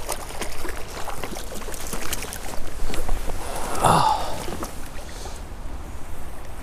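Small creek water running with wind rumbling on the microphone, broken by scattered small splashes and clicks as a hooked small rainbow trout is brought to the landing net. A short breathy vocal sound about four seconds in.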